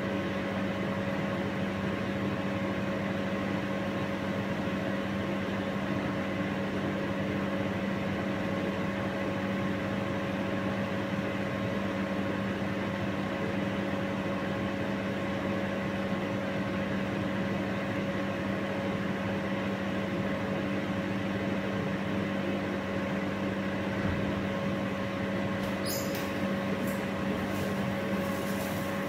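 Steady hum of a kitchen appliance's fan motor running, an even whir with a few fixed tones in it. A few light clicks come near the end.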